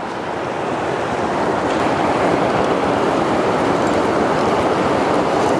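Fast-flowing river current rushing and churning: a steady wash of water noise that grows a little louder over the first couple of seconds.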